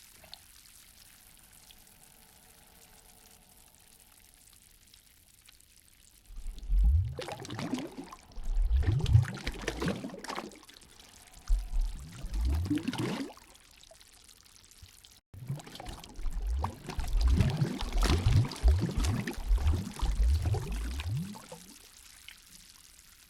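Lake water sloshing and splashing in irregular surges. It is faint for the first few seconds and eases off again near the end.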